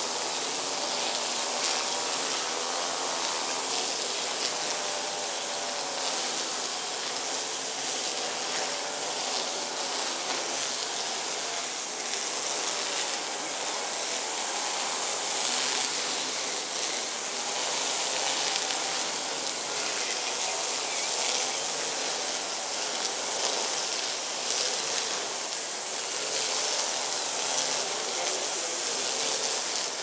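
Steady outdoor hiss with a faint wavering hum underneath, unchanging throughout.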